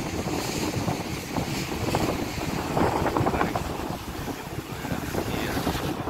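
Wind buffeting the phone's microphone over the rush of sea surf breaking on rocks, a steady rough noise that swells a little around the middle.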